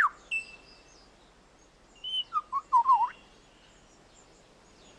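Superb lyrebird singing clear whistled notes: a falling whistle at the start, a brief held note, then a short run of looping, bending whistles about two seconds in, followed by a quiet pause.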